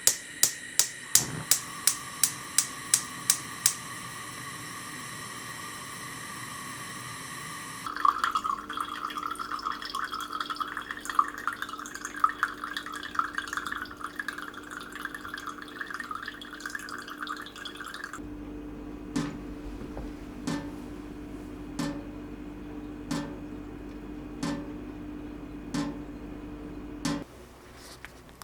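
A run of small close-up sounds from objects being handled: about ten sharp clicks in quick succession, then several seconds of dense crackling or fizzing, then slow regular ticks over a steady hum.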